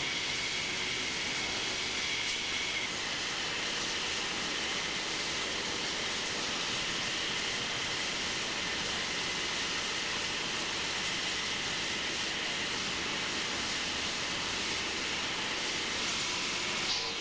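Steam locomotive hissing steadily, with a faint high steady tone over the first three seconds.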